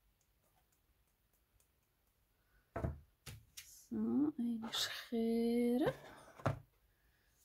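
A woman's voice humming two short steady notes, between a few dull knocks on the work table; quiet at first.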